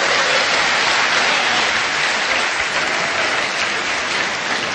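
Audience applauding, tapering off slightly toward the end.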